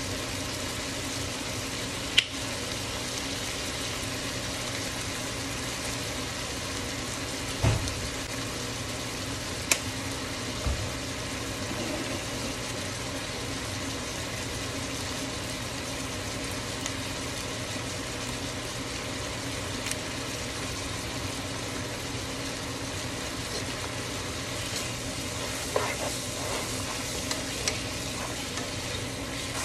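Beef, onions and garlic sizzling in a pot over a steady low hum, stirred with a plastic spatula that now and then knocks sharply against the pot.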